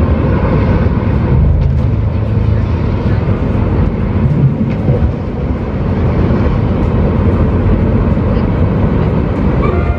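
Loud, deep rumbling sound effects from a projection light show's soundtrack, played over outdoor loudspeakers.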